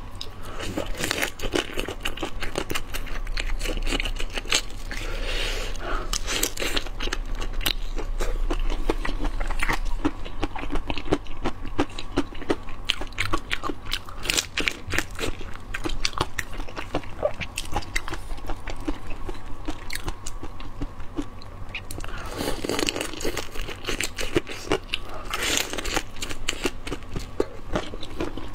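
A person eating close to the microphone: a steady run of crunching bites and wet chewing, with many small sharp clicks and cracks.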